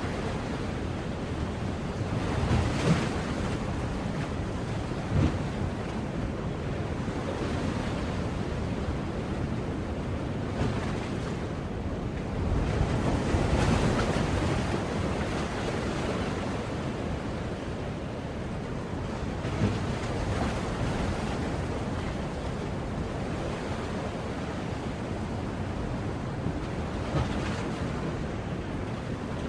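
Sea waves breaking and washing on the shore, a continuous surf with swells that come and go every few seconds, the largest about halfway through.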